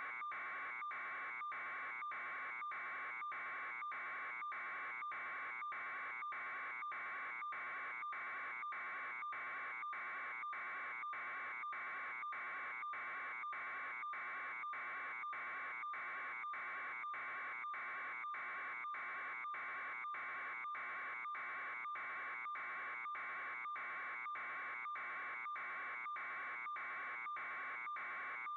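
A steady electronic buzz that pulses evenly, about three beats every two seconds, with no change in level.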